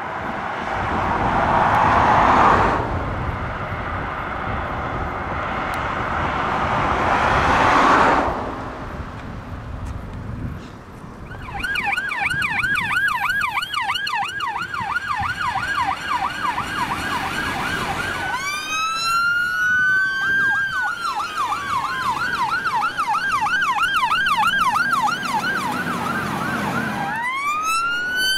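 Two fire engines drive past without sirens, their noise swelling and fading in turn. Then a fire engine siren starts on a fast yelp, and from the middle a second siren overlaps it with a slow rising-and-falling wail. A further wail starts rising near the end.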